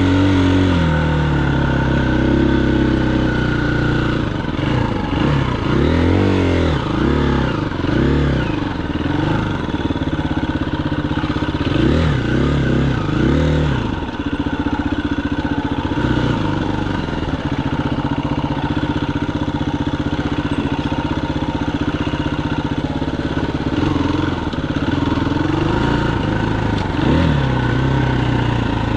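Motorcycle engine running under way, its pitch rising and falling repeatedly as it is revved and eased off, with a steadier cruising stretch in the middle.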